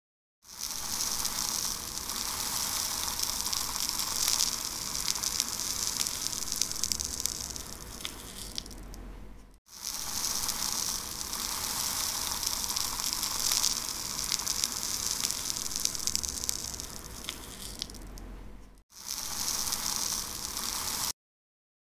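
Hissing, rushing noise played back as a looped sound sample by a sonic drawing web app. The same stretch of about nine seconds repeats twice, then starts a third time and cuts off abruptly.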